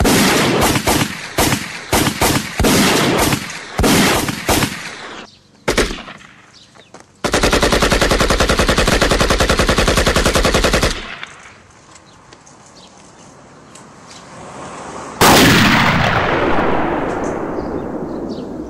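Gunfire sound effects. An irregular barrage of rapid gunshots runs for about the first five seconds. About seven seconds in, a steady burst of rapid machine-gun fire lasts some four seconds. Near the end comes one sudden loud bang that fades slowly over a few seconds.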